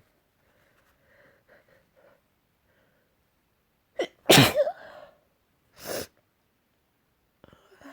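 A person sneezing. A few faint sniffs come first, then a quick intake of breath about four seconds in, then one loud voiced sneeze. A shorter burst of breath follows about a second and a half later.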